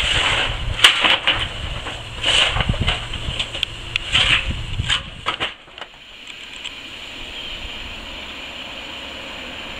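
Coal being shovelled and tipped into a steam locomotive's bunker: irregular scraping and clattering crashes over a hiss of steam. The clatter stops about five and a half seconds in, leaving a steady hiss from the standing locomotive.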